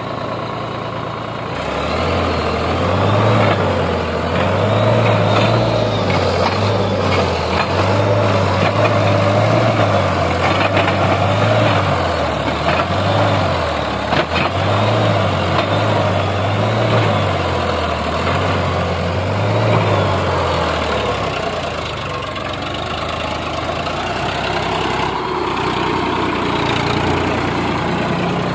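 Sonalika DI 45 RX tractor's diesel engine running loud, its revs rising and falling over and over, then settling to a steadier, lower note about twenty seconds in.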